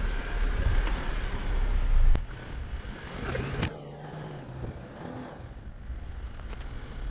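Jeep Wrangler driving off-road at low speed: a heavy low rumble of engine and running gear with a sharp knock about two seconds in, after which the sound drops to a quieter rumble with a few light knocks.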